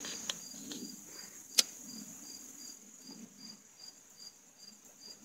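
Crickets chirping: an evenly pulsed high chirp about two and a half times a second over a steady high-pitched trill. A single sharp click about one and a half seconds in is the loudest sound.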